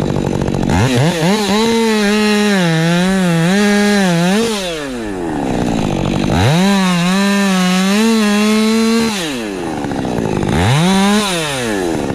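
Ported Husqvarna 550 XP Mark II two-stroke chainsaw revved to full throttle three times, its pitch wavering while held high, and dropping back toward idle in between.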